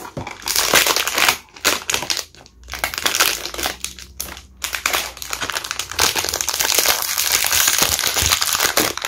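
Foil inner bag of a blind-box figure crinkling and crumpling as hands squeeze and work it open. It comes in short spells with brief pauses at first, then runs almost without a break from about halfway through.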